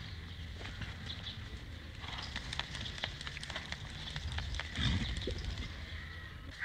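Horses moving about on hard ground: irregular knocks of hooves, thickest in the middle of the stretch, with a short low sound from a horse about five seconds in.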